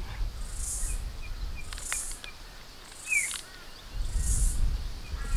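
Outdoor ambience: an insect's high-pitched buzz repeating about every second, with a few short bird chirps and a brief falling bird call about three seconds in. A low rumble comes near the start and again about four seconds in, and a couple of light clicks come about two seconds in.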